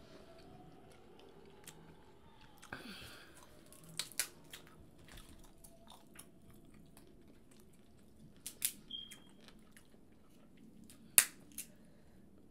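Crab legs snapped and their shells cracked by hand: a handful of sharp cracks, the loudest about eleven seconds in, between soft chewing sounds.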